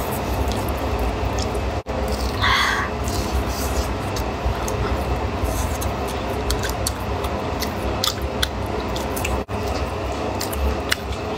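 Close-miked chewing of a crisp beef huoshao flatbread: soft mouth sounds with many small crackly clicks, over a steady low background hum. A brief high squeak sounds about two and a half seconds in.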